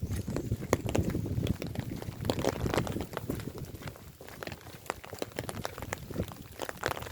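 Footsteps on a wet street, a run of irregular sharp clicks and knocks over a low rumble.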